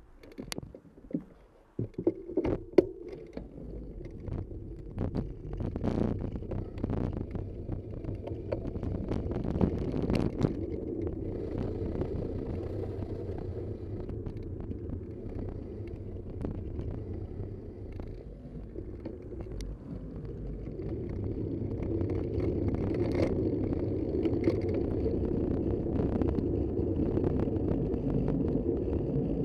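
A vehicle on the move: a steady engine and road rumble that grows louder over the last third, after a few sharp knocks and clicks in the first seconds.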